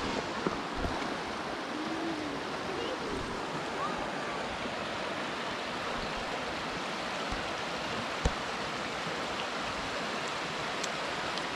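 Mountain creek running over rocks and shoals in a steady, even rush, with one sharp knock about eight seconds in.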